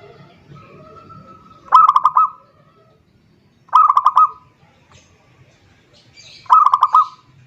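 Zebra dove (perkutut) cooing: three short phrases of quick, pulsed coos, each about half a second long and a couple of seconds apart.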